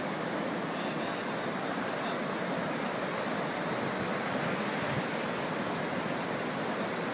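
Fast-flowing floodwater rushing and churning through a street: a steady, unbroken rush of water.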